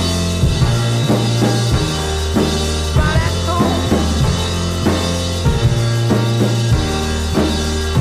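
Studio recording of a piano-driven rock song: a drum kit keeping a steady beat under held, changing piano chords.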